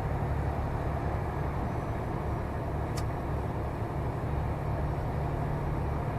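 Steady low rumble of a Scania lorry's engine and tyre noise, heard inside the cab while driving, with a single brief tick about three seconds in.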